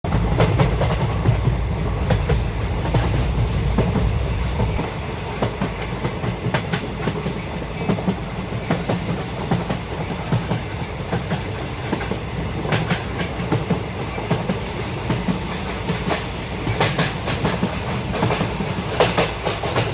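Keikyu electric train running on the rails: a heavy low rumble for the first few seconds, then a lighter running noise with the wheels clicking over rail joints, the clicks coming thicker in the second half.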